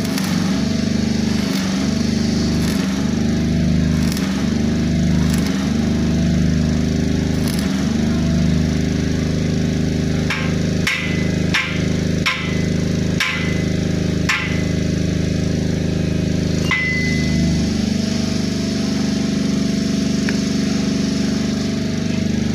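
A small engine running steadily throughout. About halfway in comes a quick run of sharp metal clanks, roughly seven or eight of them, each ringing briefly: hammer blows on metal fittings during a solar light installation.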